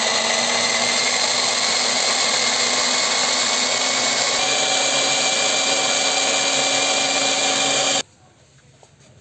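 Push-top electric mini food chopper running steadily as its blade minces garlic, ginger and green chillies, with a slight shift in pitch partway through. The motor cuts off suddenly about eight seconds in.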